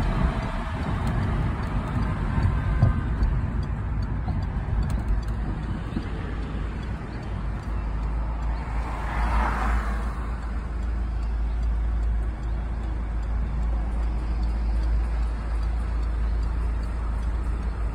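Road noise heard from inside a moving car: a steady low rumble of engine and tyres in traffic, with a brief rise in hiss about nine seconds in.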